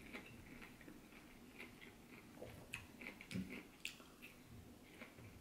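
Faint chewing and biting of ripe, juicy pineapple chunks: irregular small clicks, a little stronger about three to four seconds in as another chunk is bitten off the fork.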